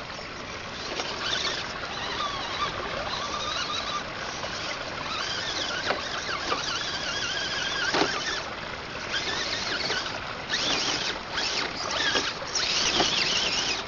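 Axial SCX10 RC rock crawler driven by a brushed electric motor, its motor and gears whining and wavering in pitch with the throttle as it climbs over dirt and rock, with a few sharp knocks of the tyres and chassis against the rock, the clearest about eight seconds in.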